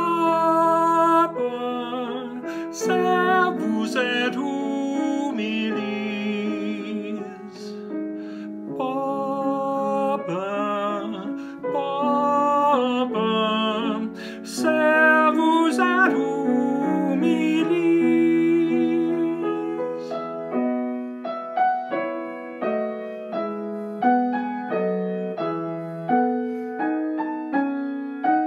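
A man singing with vibrato over piano accompaniment; the voice stops about twenty seconds in and the piano plays on alone.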